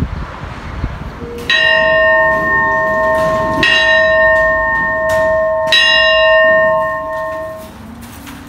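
A bell struck three times, about two seconds apart, each strike ringing on with several clear steady tones that overlap and fade away.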